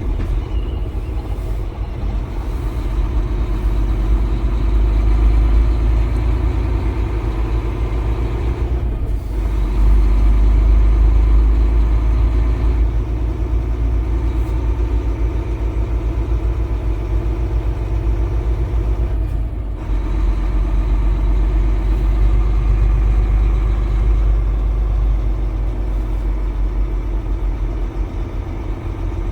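Semi truck's diesel engine running steadily with a low rumble. Its sound drops off briefly twice, about nine seconds in and again about twenty seconds in.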